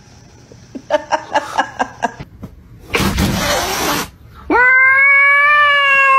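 A quick string of short cries, then a cat hisses for about a second, then one long, steady yowl of about two seconds: a cat's threat yowl, typical of two cats squaring off.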